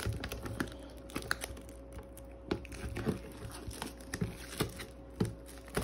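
Clear plastic shrink-wrap crinkling as it is picked at and peeled off a metal collector's tin, with scattered light clicks and crackles.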